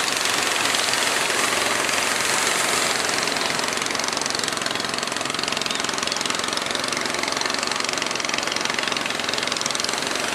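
Fishing boat engines running with a fast, knocking beat, mixed with a steady hiss of rough surf and choppy waves.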